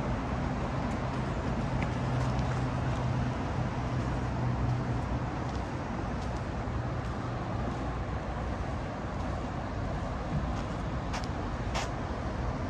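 Steady city traffic noise of passing vehicles, with a low engine hum that fades out about five seconds in and a few faint clicks near the end.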